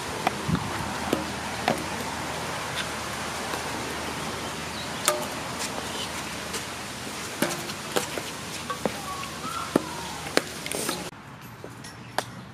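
Mini golf ball and putter clicking and knocking, a dozen or so sharp, irregular clacks as the ball is struck and bounces off the course, over a steady hiss that cuts off suddenly about eleven seconds in.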